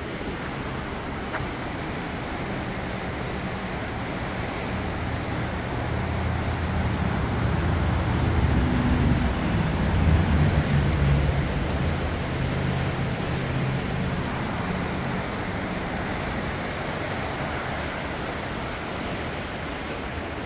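Fast-flowing river current rushing steadily. A low engine hum swells to its loudest about ten seconds in, then fades away.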